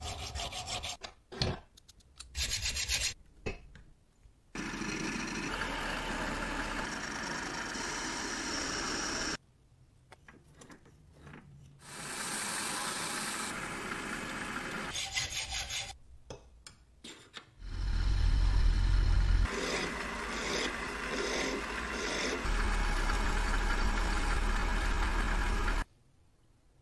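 Metalworking sounds in turn: a hacksaw cutting a metal bar held in a bench vise, in quick short strokes, then a steel rod spinning in a lathe while a red abrasive pad is rubbed along it, a steady rubbing noise. Short quiet gaps separate the stretches, and a loud low hum comes in briefly about two thirds of the way through.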